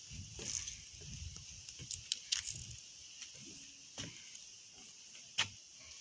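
A steady high insect chorus from the surrounding forest, with footsteps scuffing on dry leaves and stone and a few sharp clicks.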